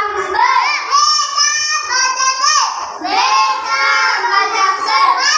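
A young child's voice reciting Sindhi letter sounds in a sing-song chant, with drawn-out syllables that rise and fall in pitch.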